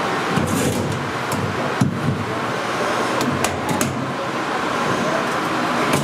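Steady rush of a commercial kitchen's ventilation fans, with a few light metallic clinks and soft thuds as raw wings are tipped from a wire strainer into wire fryer baskets.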